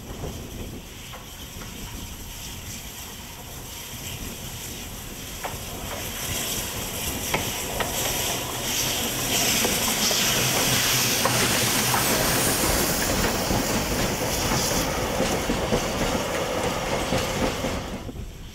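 Mika-type (2-8-2) steam locomotive 6021 with a freight train drawing near and passing at slow speed: a steam hiss with scattered clicks from the wheels on the rails, growing louder to its loudest as the engine goes by, then dropping away suddenly near the end.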